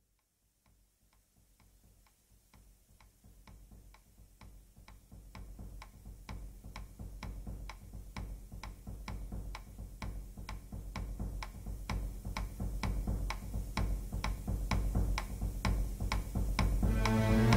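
Steady clock-like ticking, about five ticks every two seconds, over a low music bed, fading in gradually from silence; fuller music comes in near the end.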